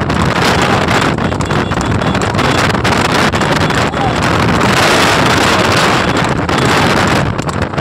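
Loud, steady rush of wind buffeting the microphone while moving at racing speed beside a galloping horse and cart, with no clear hoofbeats standing out.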